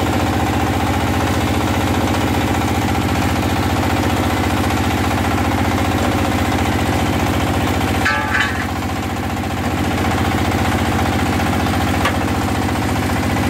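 Diesel engine running steadily under load, driving a clay brick-making extruder. A brief clatter comes about eight seconds in, and a small click comes near the end.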